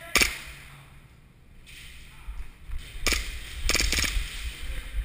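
Airsoft pistol firing: a single sharp crack just after the start, then three more in quick succession around three to four seconds in, over low rumbling handling and movement noise.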